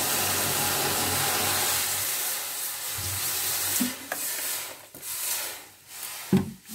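Water poured from a plastic bottle into an empty aluminium kadai, a steady splashing rush that tapers off and stops a little under four seconds in. After it come a few handling knocks, the loudest a sharp thump near the end.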